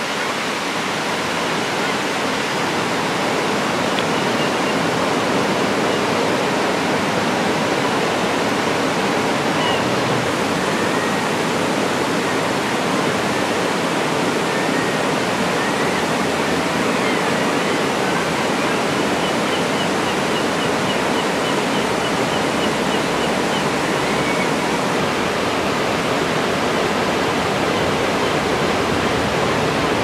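Steady rush of river water pouring over a low concrete dam spillway and churning below it, with a few faint, short high bird calls now and then.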